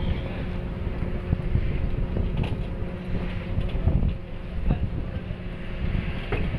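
A ferry's engines running with a steady low rumble and a constant hum as it pulls away from the quay, with wind buffeting the microphone.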